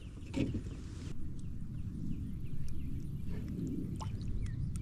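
Birds chirping in short, falling notes, repeated many times, over a steady low rumble, with a few sharp clicks.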